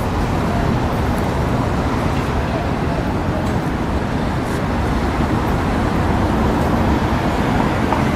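Steady street traffic noise from cars driving through a city intersection, a continuous low rumble with no single event standing out.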